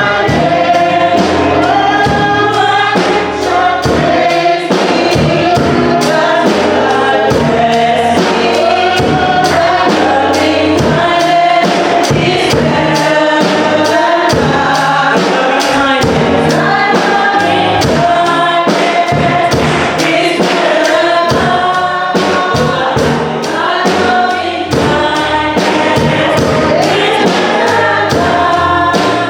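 Gospel choir singing with musical accompaniment and a steady beat.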